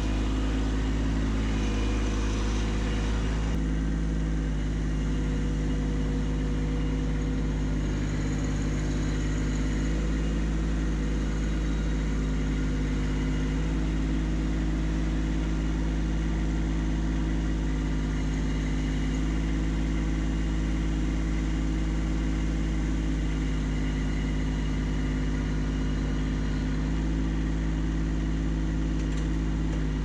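Kubota B2601 compact tractor's three-cylinder diesel engine running steadily while its front loader and grapple handle a log.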